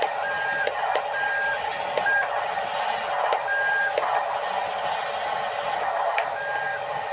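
A small electric motor and plastic gears of a toy construction vehicle whirring steadily, with scattered clicks. Short electronic beeps of uneven length sound on and off, like a toy's reversing-beep sound.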